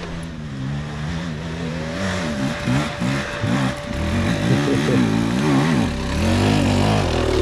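Enduro dirt bike revving up and down again and again as it climbs the trail toward the listener, getting louder from about four seconds in, over a steady idling motorcycle engine close by.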